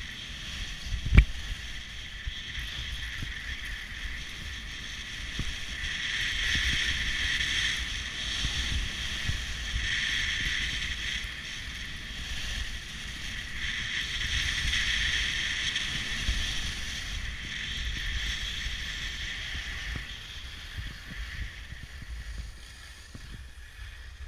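Edges carving down groomed snow: a scraping hiss that swells and fades with each turn, over a low wind rumble on the microphone. A single sharp knock about a second in.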